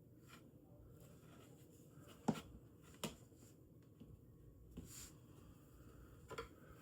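A few short, light clicks and taps of small parts being handled at a workbench, the sharpest about two seconds in, over a low room hum.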